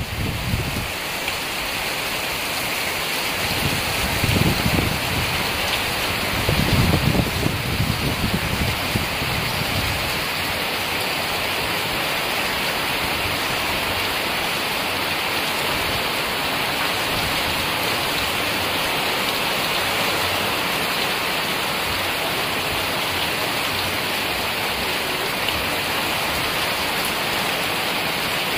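Heavy tropical rain pouring steadily onto a road, trees and the ground, a dense even hiss. Two low gusts of strong wind rumble through in the first ten seconds.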